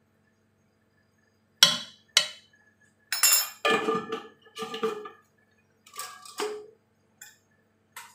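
Metal spoon clinking against an aluminium cooking pot: two sharp knocks, then several more ringing clinks and scrapes in short clusters.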